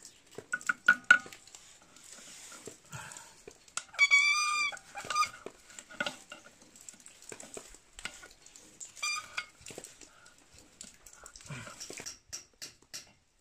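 Scattered small metal clicks and scrapes of a hand tool on a broken electric water pump. A high-pitched animal cry cuts in twice: one lasting under a second, about four seconds in, and a shorter one about nine seconds in.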